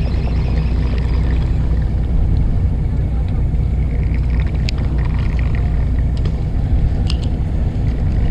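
Steady low rumble of a fishing boat's engine running, with a few faint clicks.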